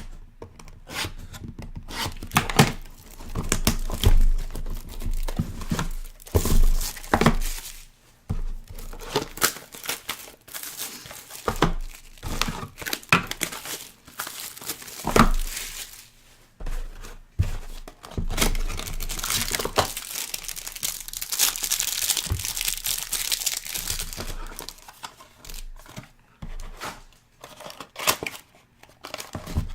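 Plastic wrapping on a sealed trading card box being torn open and crinkled, in irregular crackling handfuls with a denser rustling stretch partway through.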